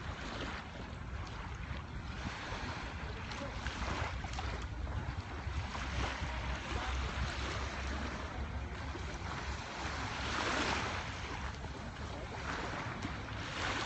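Surf washing onto the beach as a steady rush, with one louder surge about ten seconds in. Wind buffets the phone microphone, adding a low rumble.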